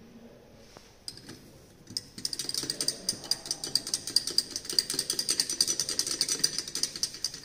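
Solution being stirred in a glass beaker during a titration, the stirring clinking against the glass in a rapid, uneven run of ticks, several a second, that starts about two seconds in after a couple of single clicks. The stirring mixes in the drop of titrant just added.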